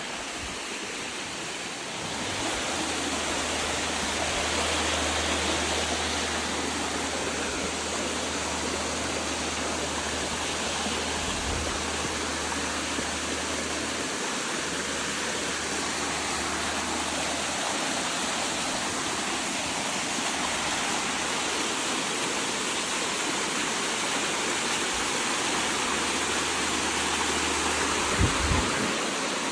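Waterfall rushing steadily, with a low rumble underneath that comes and goes and a couple of knocks near the end.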